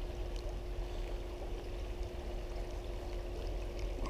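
Creek water flowing, a steady low rushing, with a faint steady hum running under it.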